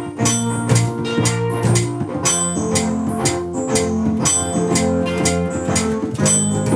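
Band music with a steady drum beat, electric guitar and organ-like keyboard chords.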